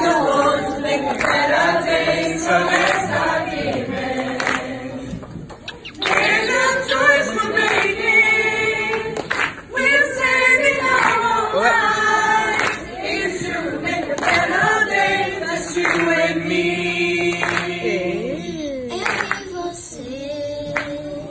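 A small mixed choir of adults and children singing together, with long held notes in the second half.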